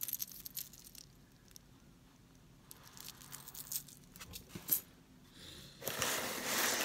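Metal necklace chain and dangling charms clicking and clinking as they are handled, with a rustle near the end.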